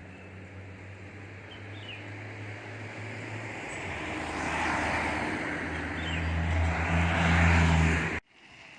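A motor vehicle approaching: a low engine hum and a rising noise grow steadily louder, loudest near the end, then cut off abruptly.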